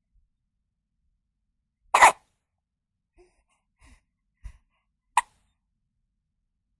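A newborn baby hiccupping: one hiccup about two seconds in and a second, shorter one about three seconds later, with a few faint small sounds between.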